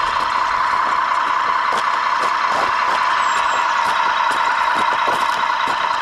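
Radio-controlled model Peterbilt truck driving over a dirt track, giving a steady high drone with scattered small clicks and knocks.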